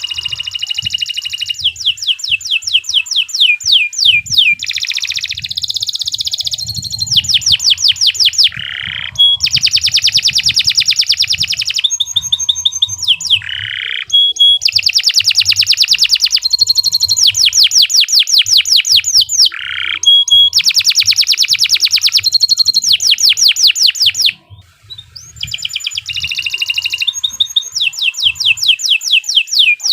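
Domestic canary singing a long, vigorous song of rapid trills and rolling repeated phrases, with a brief pause about 24 seconds in.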